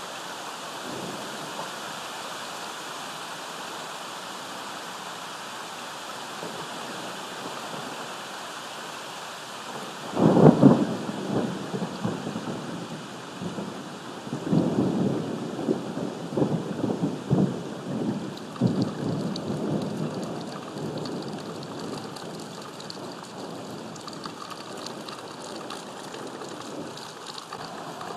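Steady rain hiss, then about ten seconds in a sudden thunderclap that rolls and crackles on for about ten seconds before fading back under the rain.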